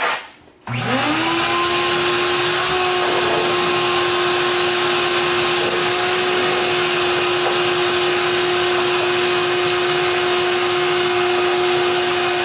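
Shop vac switched on with a click, its motor spinning up within a second to a steady, loud whine and suction rush, then beginning to wind down at the very end. It is pulling with weak suction through a dirty, clogged filter.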